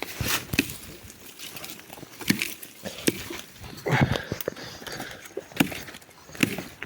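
Hatchet chopping dry wood: several sharp, irregularly spaced strikes.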